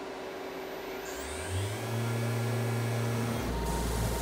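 A CNC router spindle spins up a 6-inch orbital sanding disc. A rising whine about a second in levels off into a steady hum. About three and a half seconds in, a louder, deeper steady rumble and hiss joins in.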